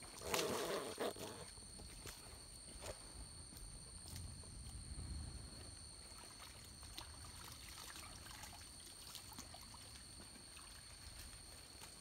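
Faint forest ambience: a light trickle of water and a steady high-pitched whine, with a brief rustle of leaves and gravel underfoot about half a second in and a few small clicks after.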